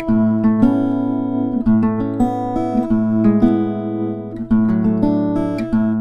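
Background music: a guitar strumming chords, moving to a new chord every second or so.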